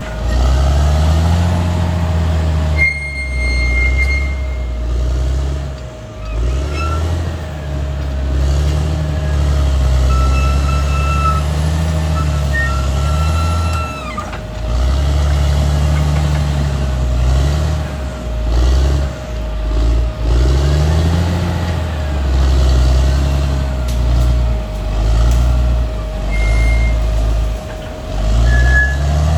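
Caterpillar D6R XL bulldozer's diesel engine working under load, its pitch repeatedly rising and falling as it revs up and eases off every few seconds. A steady whine runs under it, and there are a few brief high squeaks.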